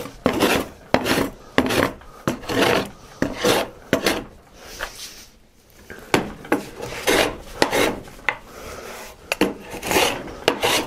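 Hand plane taking repeated strokes across a white oak board, each pass a short rasping shave of wood, about two a second with a brief pause midway. These are passes across the grain to bring the board down to thickness, close to a marking gauge line.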